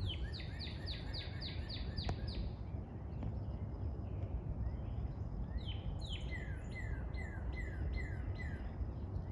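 A songbird calling: two runs of quick, repeated, down-slurred whistled notes, about three to four a second. One run is near the start and a lower-pitched one comes about six seconds in.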